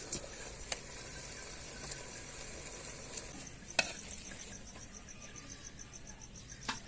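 Food sizzling as it fries in a cooking pot, with a few sharp clicks of stirring. From a little past halfway, a cricket chirps in fast, even pulses behind it.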